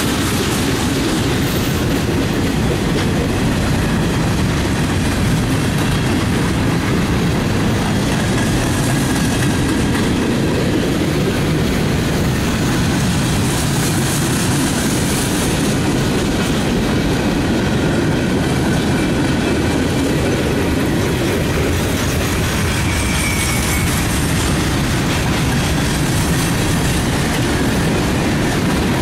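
Freight cars of a passing freight train rolling by at speed: a steady, loud rolling noise of steel wheels on the rails, with a brief faint wheel squeal about two-thirds of the way through.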